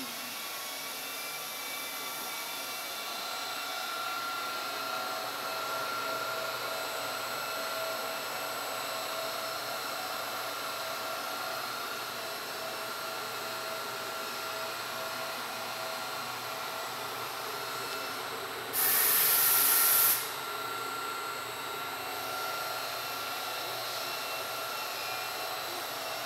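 Steady whine and hum of running industrial equipment, with several steady tones. About 19 seconds in, a loud hiss cuts in for about a second and a half and then stops sharply.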